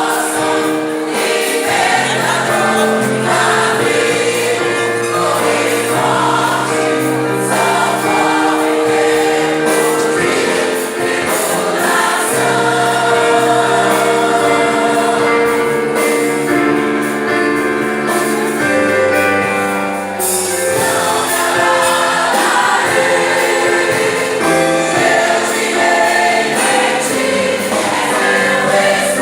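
A choir singing a Christian hymn with instrumental accompaniment, sustained and steady.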